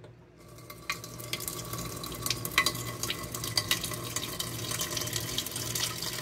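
Kitchen tap running a stream of water into a stainless steel pot standing in a stainless steel sink, splashing and spattering as the pot fills. It starts about half a second in and grows louder over the first couple of seconds, then runs steadily.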